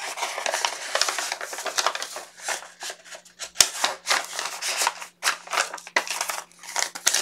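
Paper rustling and scraping as a paper card mailer and a No. 10 envelope are handled, with a sharp tap about three and a half seconds in.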